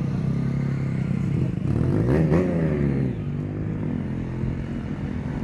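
An engine running steadily close by, its pitch rising and then falling again about two seconds in, as when a motor vehicle passes or revs.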